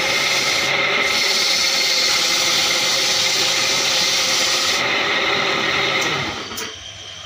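Wood lathe running while sandpaper is pressed by hand against the spinning wooden leg: a steady hiss of sanding over the motor's hum. It fades away about six seconds in.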